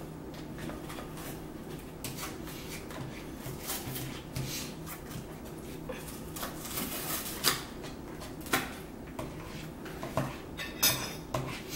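Fork and knife clicking and scraping against a plate while food is cut and eaten, with scattered light clinks, a few sharper ones past the middle.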